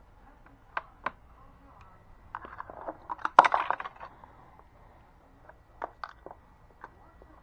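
Sharp single clicks and a short clatter of small hard parts being handled during laptop reassembly, loudest in a burst of clicks around the middle.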